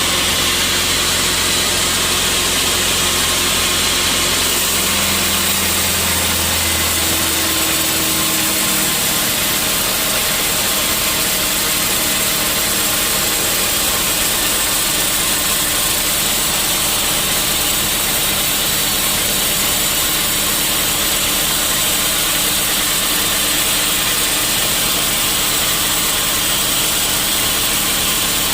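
Sawmill saw and its motor running steadily, a loud even noise strongest in the high range; a low hum under it changes and fades out about eight seconds in.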